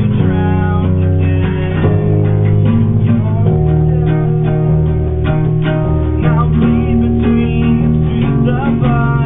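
Live band playing a rock song, with guitar and bass guitar, the bass notes changing every second or so.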